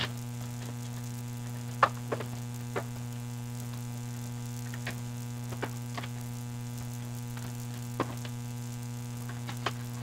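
Steady electrical mains hum, with a few scattered light clicks and crackles from the SSD's plastic blister packaging being handled and opened.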